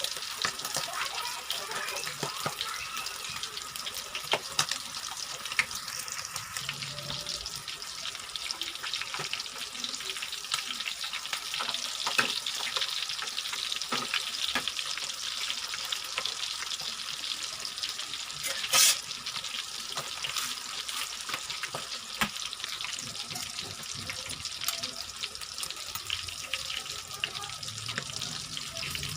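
Chicken fillet frying in hot oil: a steady sizzle with many small pops and crackles. There is one louder click about two-thirds of the way in.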